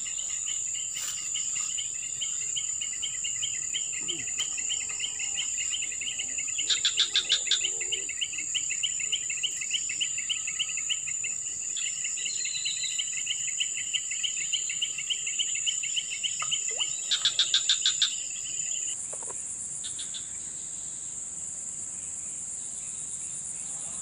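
Insects chirring: a steady high-pitched drone with a faster pulsing trill beneath it, broken twice by short, louder rapid pulse trains. About 19 seconds in the pulsing trill stops, leaving the high drone.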